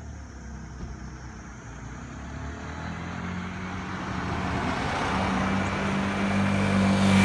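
A car and a motorcycle driving up the road toward the listener, their engine sound growing steadily louder as they approach and loudest near the end.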